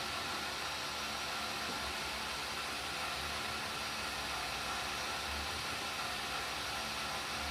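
Gas-fired cotton candy machine running: a steady hiss of the burner and spinning head, with a faint steady whine.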